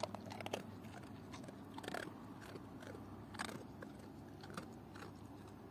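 Large dog crunching and chewing dry kibble from a plastic bowl, in irregular crunches with a few louder ones.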